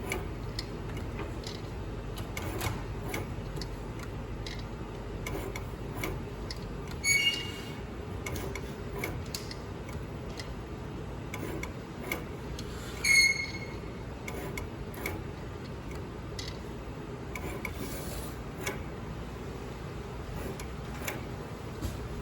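Automated soldering machine at work: a steady hum with frequent light clicks and ticks, and two short electronic beeps about six seconds apart.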